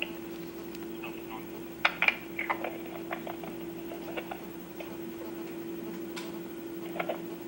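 Scattered light clicks and taps, a few of them sharper about two seconds in, over a steady low electrical hum.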